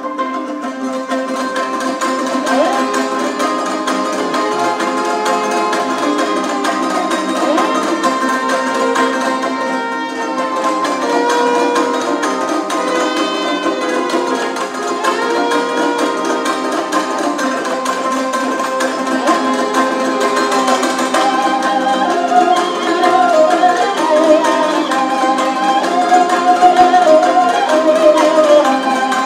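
Traditional Kazakh folk ensemble playing plucked long-necked lutes and a table zither over steady held drone tones, with a higher melody line coming in about twenty seconds in.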